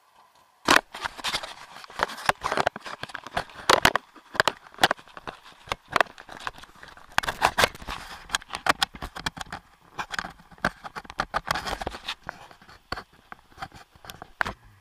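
Dense, irregular knocks and scrapes of a small camera being jostled on its mount as the inflatable craft it is fixed to is carried. The noise starts suddenly about a second in.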